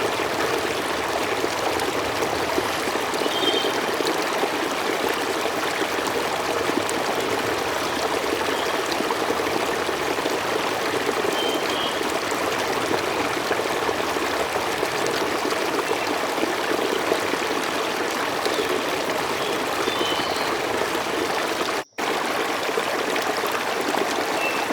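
River ambience from the Opal relaxation-sound program: a steady, even rush of flowing stream water with a few faint short high chirps. It cuts out for an instant near the end.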